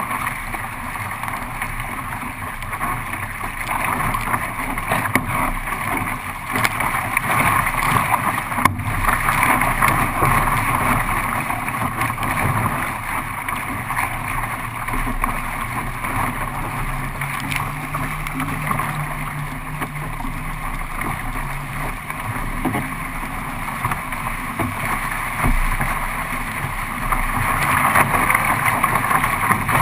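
Sea water rushing and splashing past a kayak running with the swell, with wind buffeting the microphone; the rush swells louder several times.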